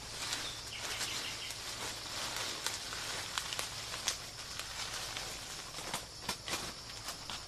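Dry leaf litter rustling and crackling as dry leaves are scooped up by hand, followed by footsteps crunching over dry leaves, with sharp crackles scattered through. Underneath runs a steady high insect drone.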